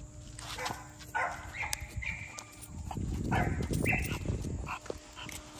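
American Bully dog making short high-pitched whines, then a louder stretch of low, rough breathing and grunting about three seconds in as it comes up close.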